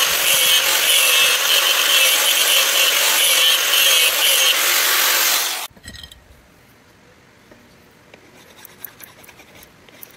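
A power grinder working the steel of a sword blade: a steady grinding noise with a high ringing tone over it. It stops abruptly about five and a half seconds in, leaving only faint clicks and knocks.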